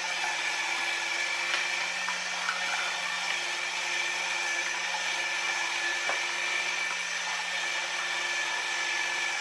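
Small electric motor of a Haynes HM04R model engine kit running steadily, a constant whine as it turns the plastic gears, crankshaft and pistons, with an occasional faint click. It runs freely now that the belt tension has been eased, no longer struggling.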